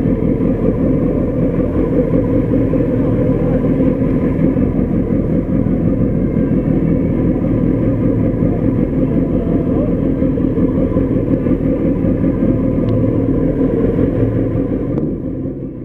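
Suzuki Hayabusa's four-cylinder engine running at a steady idle, fading out near the end.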